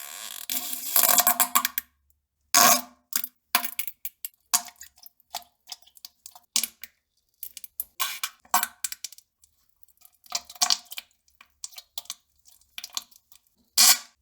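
Fart and poop sounds: a string of short, sharp pops and sputters at irregular intervals, with silent gaps between them.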